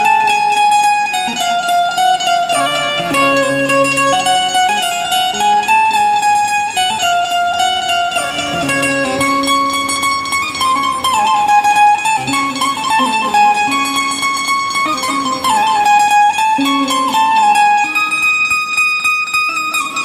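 Instrumental ringtone melody played on a plucked string instrument, a tune of held notes stepping up and down at a steady level.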